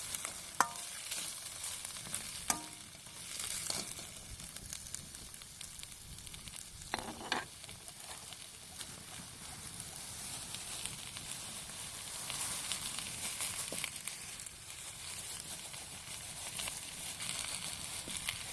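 Steady sizzling and crackling from a Beijing wok of food cooking over a wood campfire, with a couple of sharp clicks in the first few seconds.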